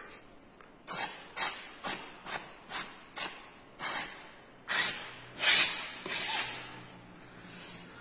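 Paint being spread across a canvas in strokes: a run of short scraping swishes about two a second, then two longer, louder scrapes around the middle.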